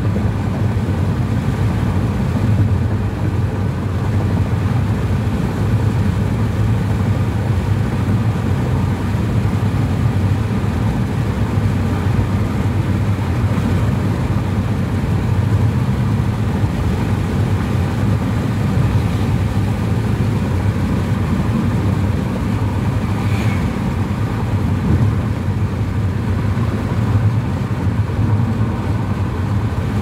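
Steady low rumble of a car driving at speed, heard from inside the cabin: tyre noise on a concrete road with engine hum.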